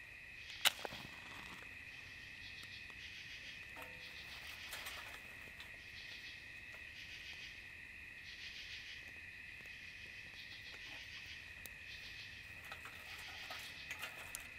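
A night insect chorus: a steady high trill with a rasping call over it that repeats about once a second. A few faint snaps come from dry twigs being handled in a small fire pit, one just under a second in and several near the end.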